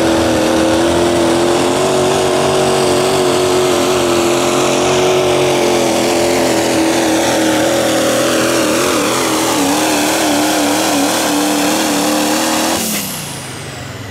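Pro stock diesel pulling truck's turbocharged diesel engine running flat out under full load as it drags the sled, its pitch wavering a couple of seconds before the end of the pull. About 13 seconds in the engine is suddenly shut off and a high whistle falls away.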